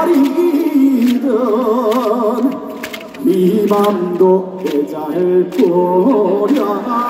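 Male trot singer singing unaccompanied into a microphone, with wide vibrato on long held notes and a short breath pause about three seconds in.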